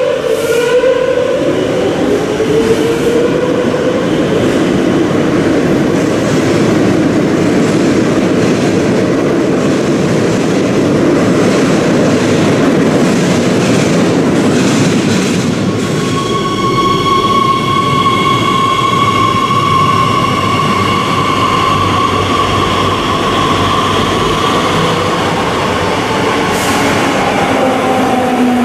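Madrid Metro electric train pulling out: its traction motor whine rises in pitch as it accelerates, then the wheels rumble steadily on the track. About halfway through a steady high squeal sets in, and near the end a falling whine as another train comes in and brakes.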